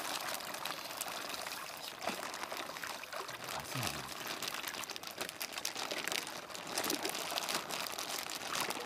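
Pond water pouring, trickling and sloshing around a clear plastic bag as a koi is worked into it under the surface, with the plastic crinkling.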